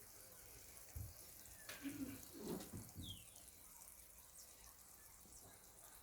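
Near silence: faint steady hiss, with a few soft knocks about one to three seconds in.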